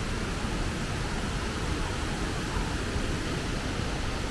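Wachirathan Waterfall, a steady rush of falling water with no breaks or distinct events.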